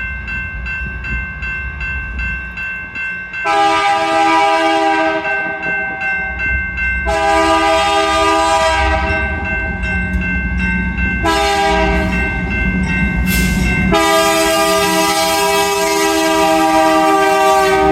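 Freight diesel locomotive's multi-chime air horn blowing the grade-crossing signal: long, long, short, long, the last blast still sounding at the end. The locomotive's engine rumbles low underneath.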